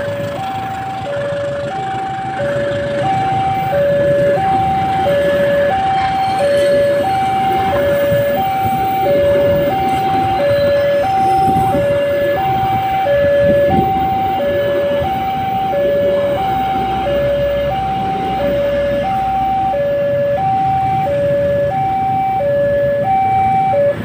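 An electronic two-tone warning alarm alternates steadily between a higher and a lower note, about one swap every two-thirds of a second. Under it, passenger coaches rumble past on the rails. Both cut off abruptly at the very end.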